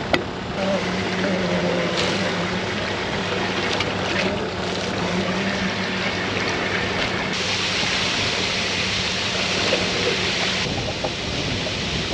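Water sloshing and splashing in a sheep water trough as it is stirred and scrubbed out with a broom, growing louder and hissier for a few seconds past the middle. A steady low hum runs underneath.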